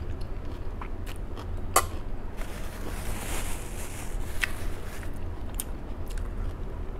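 A person chewing a mouthful of crisp lettuce salad close to the microphone, with scattered small crunches and clicks. About halfway through there is a soft rustle as a paper tissue wipes the mouth.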